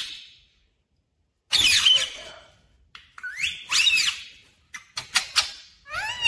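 Ring-necked parakeet calling: a run of short, loud whistle-like calls that slide up and down in pitch, starting about a second and a half in, with short pauses between them.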